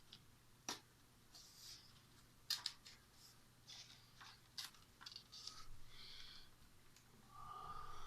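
Faint clicks and short rustles of a sheet of A4 paper being handled and laid on the plotter's table, with a short humming tone near the end.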